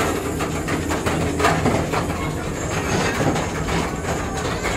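Calico Mine Train ride train rolling along its track through the mine tunnel: a steady rumble with irregular clicking and rattling from the wheels and cars.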